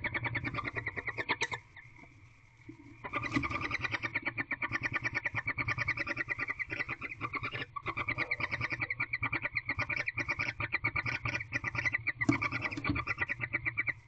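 An animal call trilling in rapid, even pulses. It breaks off after about a second and a half, then starts again about three seconds in and keeps going.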